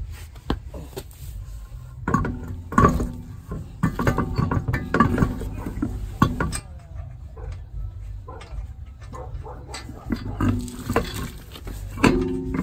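A steel road wheel is hung back on the hub studs and the lug nuts are threaded on by hand: a string of metallic clanks and clinks from rim, studs and nuts, some ringing briefly. The clinks are busiest in the first half and come again near the end.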